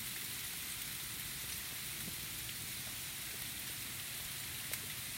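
Freezing rain falling: a steady hiss with a few faint ticks.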